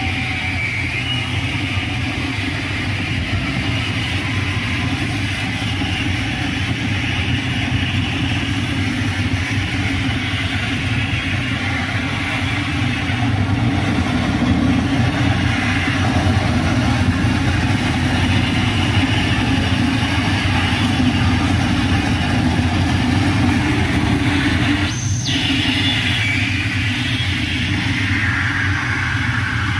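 Live harsh noise set: a dense, steady wall of distorted electronic noise with a heavy low rumble and no beat or melody, with a brief gap about 25 seconds in.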